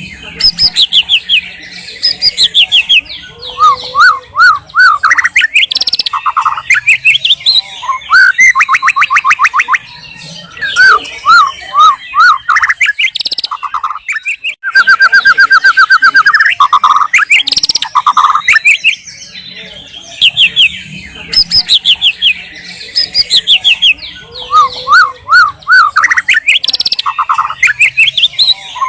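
White-rumped shama singing a loud, varied song of rapid trills, repeated upslurred notes and clear whistled phrases, broken by short pauses, with one long fast trill about halfway through.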